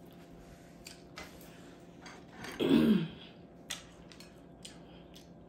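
Quiet eating noises: scattered soft mouth and utensil clicks. About two and a half seconds in, a brief vocal sound falling in pitch.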